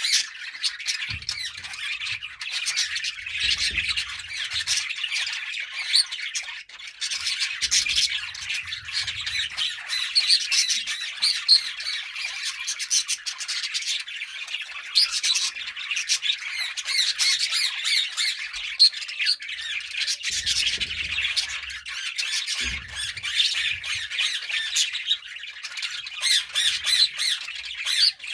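A flock of budgerigars chattering continuously, many overlapping short chirps and squawks.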